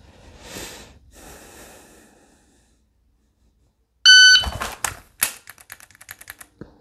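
A breath, a pause, then a shot timer's short electronic start beep, followed by the draw from a holster and a quick string of sharp dry-fire trigger clicks from a pistol.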